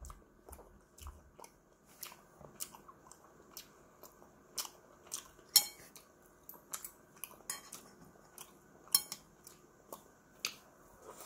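Metal chopsticks clicking and tapping irregularly against a dish as pieces of inari sushi are picked up, with a few sharper clicks in the middle, and soft chewing of the sushi between them.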